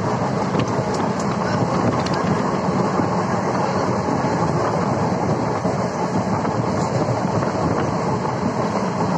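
Passenger express train running at high speed, heard from a coach window: a steady rumble of wheels on rails and rushing air, with a few faint clicks over rail joints.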